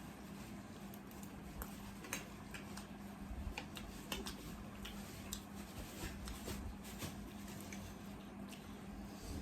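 Eating sounds: scattered small clicks and taps of cutlery and dishes with wet chewing, over a faint steady low hum.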